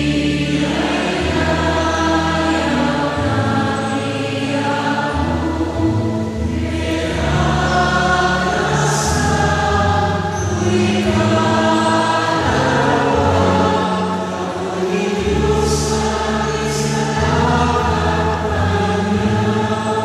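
A woman cantor singing the responsorial psalm, with a sustained low accompaniment beneath her voice.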